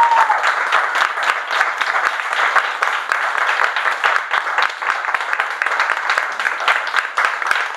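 Audience applauding steadily, many hands clapping, with a brief call from one listener at the very start.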